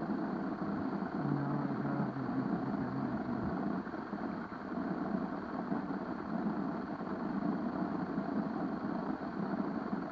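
Steady rushing noise of stream water, muffled, with a faint low hum for about two seconds a second in.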